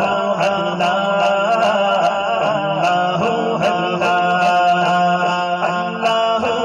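A man's solo voice chanting devotional Urdu verse in a long, ornamented, wavering melody, sung close into a microphone over a steady low drone.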